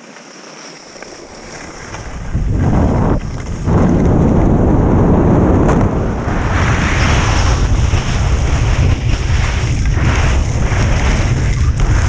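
Wind buffeting the microphone of a skier's camera as the skier picks up speed downhill, mixed with the hiss of skis scraping over firm snow. It is fairly quiet at first and turns loud and rumbling about two seconds in, staying loud from then on.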